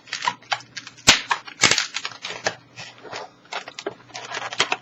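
Inflated latex 260 modelling balloon being twisted and handled, giving irregular squeaks and crackles of rubber rubbing on rubber, with a sharp snap about a second in.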